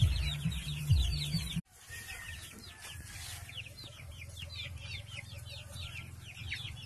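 A flock of young native chickens peeping: rapid, high, falling peeps that overlap one another. A low rumble sits under them for the first second and a half, then the sound cuts off for a moment and the peeping carries on more quietly.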